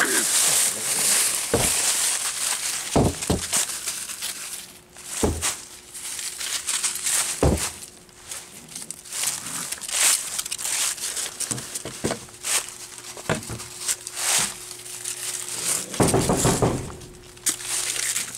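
Dry fallen leaves crunching and rustling under feet and paws, with scattered thumps.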